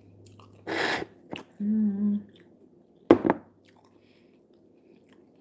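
A person eating steamed broccoli in a cheese sauce: a brief noisy burst about a second in, a short hummed "mmm", then a sharp click a little after three seconds, with faint chewing between.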